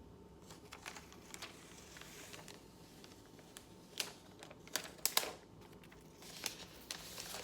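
The iPad Pro box's cardboard lid being slowly lifted off: a faint sliding rustle of cardboard with a few sharp clicks and scrapes about four to five seconds in and once more near the end.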